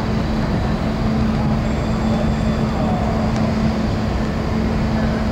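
Steady low rumble with a constant hum from the car ferry Tokiwa Maru's engines as the ship pulls away from its berth.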